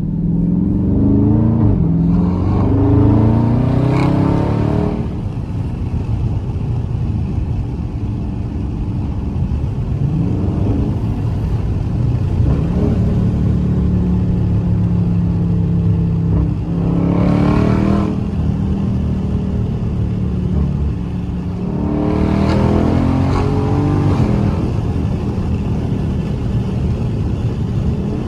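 Dodge Charger Scat Pack's 392 HEMI V8, fitted with a cold air intake, under way. It accelerates hard through the gears in the first five seconds, with the pitch climbing and stepping down at each shift. Between bursts it settles into a steady cruising drone, with a short rev a little past halfway and another hard pull near the end.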